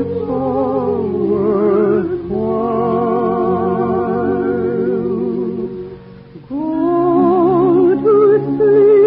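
Voices singing a lullaby in long, held notes with vibrato over a soft orchestral accompaniment, heard on a 1950s radio broadcast recording. The music dips almost to nothing about six seconds in, then comes back.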